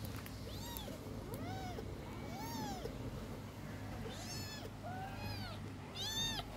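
Young kittens mewing, a series of short, high-pitched mews that rise and fall in pitch, about seven or eight of them, the loudest near the end.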